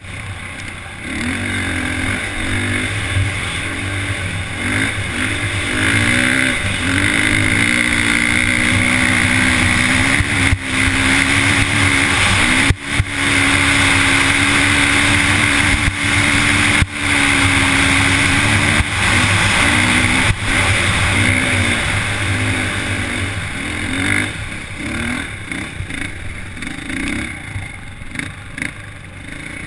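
Dirt bike engine revving up and down as it is ridden over sand dunes, then held at high revs through a long climb. The note dips sharply for a moment a few times.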